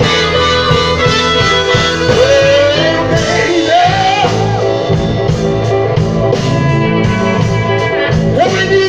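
Live blues band playing an instrumental stretch: guitar and bass under a harmonica lead that bends notes upward a couple of seconds in and again near the end.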